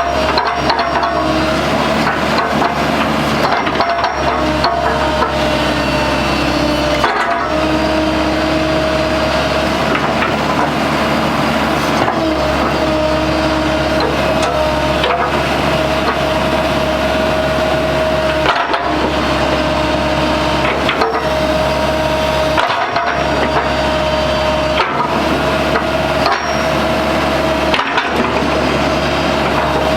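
Komatsu PC128US-1 excavator running: a steady diesel hum and a whine held steady above it, over continual mechanical clatter, with a few brief dips.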